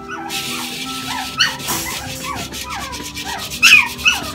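A Pomeranian whining and yipping in a string of short falling squeaks, with a louder yip near the end, over the rubbing of a cloth scrubbing a brass-and-copper scale pan.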